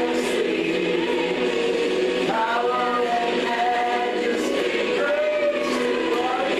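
A choir singing a slow worship song in harmony, holding long notes.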